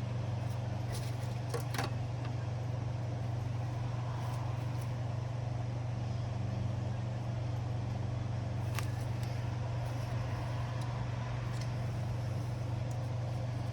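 Steady low hum, with a few faint light clicks, about a second in, near two seconds and near nine seconds.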